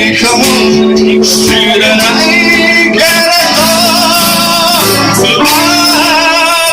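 Music: a man singing over guitar accompaniment.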